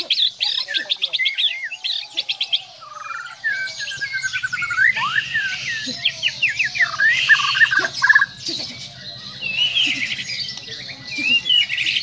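White-rumped shama (Bornean murai batu) singing: it opens with a fast trill of repeated high notes, then runs into varied whistled phrases with quick rising and falling slurs.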